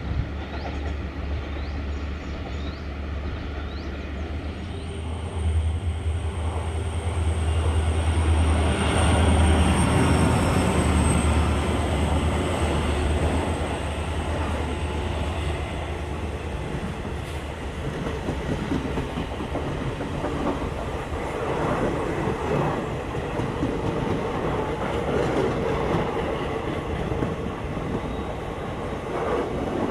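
An electric locomotive approaching with a strong steady low hum and a thin high squeal that grows loudest about a third of the way in. After that, a passenger train's coaches roll past close by, wheels clattering rhythmically over the rail joints.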